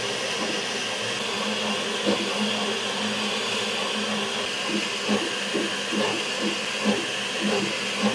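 Elegoo Centauri Carbon CoreXY 3D printer printing with its door open: a steady fan whir with the print head's stepper motors whining and buzzing in short moves that come and go, more often from about two seconds in. Quite a bit louder with the door open.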